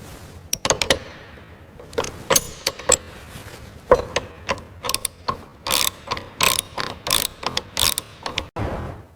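A run of irregular mechanical clicks and clacks, growing busier with short rattling scrapes about halfway through, like hand tools or parts being worked.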